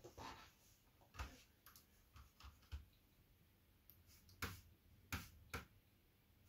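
Faint, scattered small clicks and taps of hands working on a smartphone with small tools during an LCD replacement. The clicks are irregular, several a second at times, and loudest in a group of three about four to five and a half seconds in.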